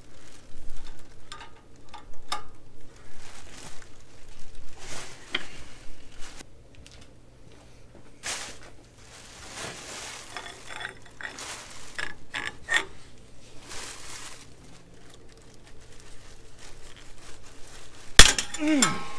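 Socket and breaker bar on a front brake caliper bolt, with scattered metal clicks and clinks as the tools are fitted and levered. Near the end a tight bolt breaks loose with one loud, sharp crack that rings briefly.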